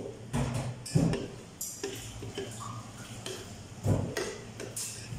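Metal serving spoon knocking and scraping against an aluminium cooking pot and a ceramic plate while scooping chicken adobo, in a string of separate clanks, the loudest about a second in and another near four seconds.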